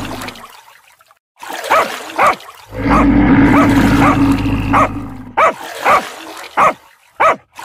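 A dog barking in short yips, about eight times, some in quick pairs. A steady low hum fades out early, comes back in the middle and stops again.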